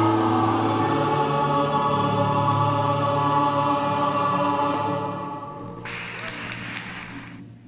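Mixed choir holding a long sustained chord that fades away about five seconds in, followed by a brief hissing noise near the end.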